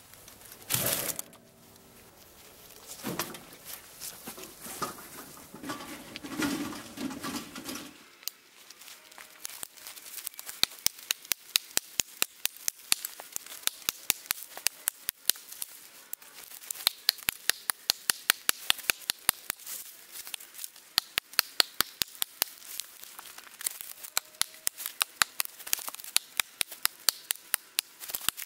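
A hatchet chopping into a fallen log: from about eight seconds in, a long quick run of sharp strikes, several a second. Before that, rustling and handling with a thud about a second in.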